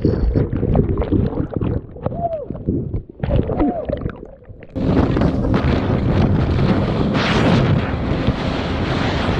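Wind buffeting the microphone with a few short whooping shouts. About five seconds in, a jet ski's engine takes over, running steadily with a constant low tone under heavy wind noise.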